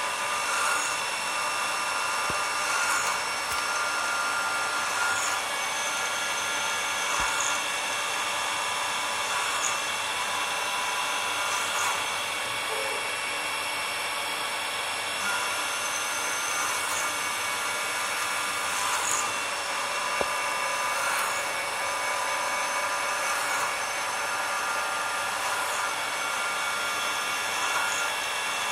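Basic three-axis CNC machine running a test: a steady motor whine with several held tones, and short high chirps about every two seconds.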